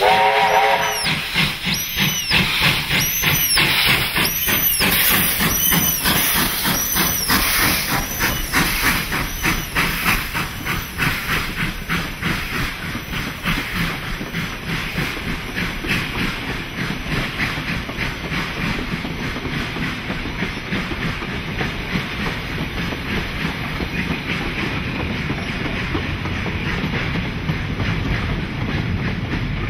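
Victorian Railways J class steam locomotive working hard up a grade: its whistle ends about a second in, then loud, even exhaust beats and hiss of steam as it passes, fading into the steady rumble and clickety-clack of the carriages and wagons rolling by.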